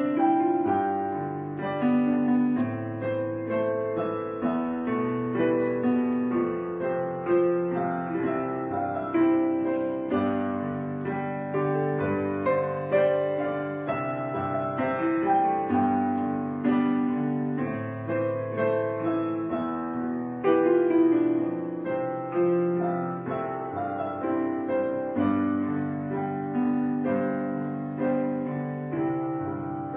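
Background piano music: a melody played over chords, each note struck and left to fade.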